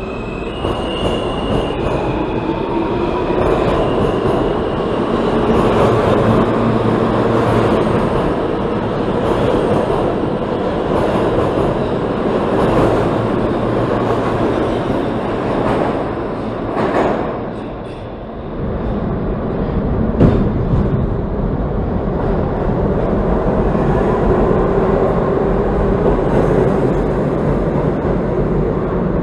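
New York City subway train running along the platform, its wheels rumbling on the rails under a whine that rises in pitch early on, as when the train is pulling out. After a brief dip about 18 seconds in, another subway train rumbles along the tracks toward the station, with a single sharp click about two seconds later.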